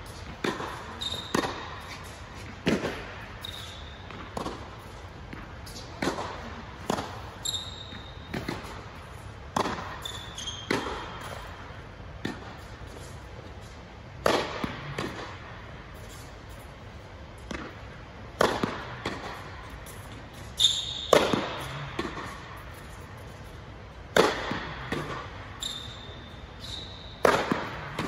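Tennis balls being struck by a racket and bouncing on a hard court, a sharp impact every second or two with echo in the air-supported dome. Short high squeaks of shoes on the court come in between.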